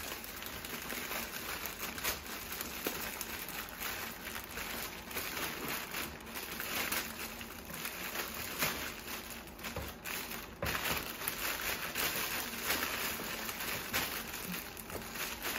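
Clear cellophane gift-basket wrap crinkling and crackling continuously as it is handled and its ribbon untied.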